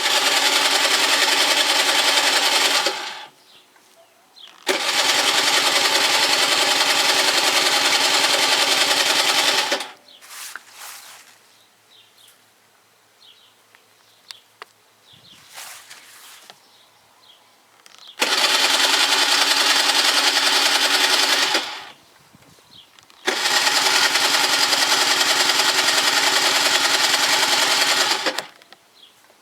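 Gilera DNA 50 scooter's electric starter cranking the engine in four bursts of three to five seconds each, a steady whir that starts and stops abruptly without the engine catching: a no-start after winter. Faint clicks and rattles fall in the pauses between bursts.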